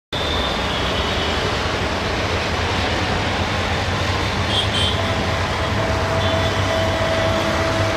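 Steady low drone and rumble of a distant approaching EMD GT18LA-2 diesel locomotive, mixed with city background noise. A brief high double chirp comes about four and a half seconds in.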